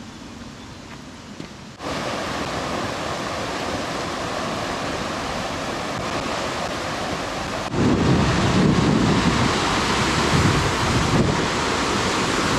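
Loud, steady rushing of river water. It starts suddenly about two seconds in and gets louder with a deeper rumble from about eight seconds on.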